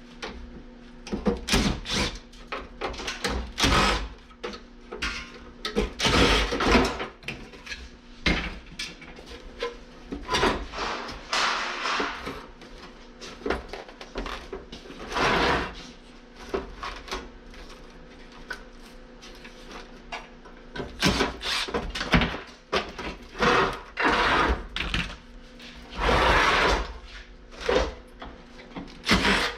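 Irregular clanks, scrapes and rattles of metal parts as an air conditioner is pried and broken apart for scrap, over a faint steady hum.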